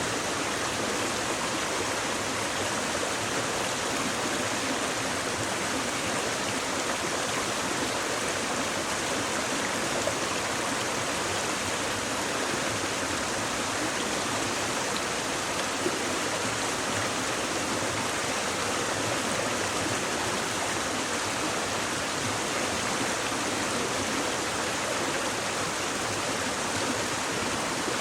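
Shallow stream babbling steadily over stones, an even rushing and splashing of water.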